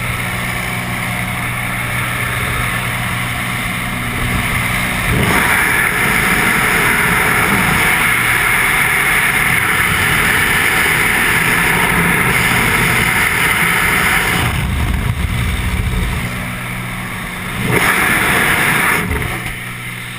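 Steady drone of a small jump plane's engine with wind rushing past. The wind noise swells from about five seconds in to about fourteen, and again briefly near the end.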